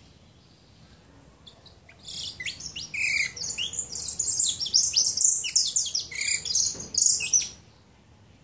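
Caged saffron finch singing a short 'chicharreo' song: a fast run of high chirps that starts about two seconds in and lasts about five seconds.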